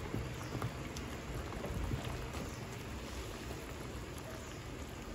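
Estofado boiling in a stainless steel pot: a steady bubbling patter, with a spatula stirring through the meat and sauce and a few faint small clicks.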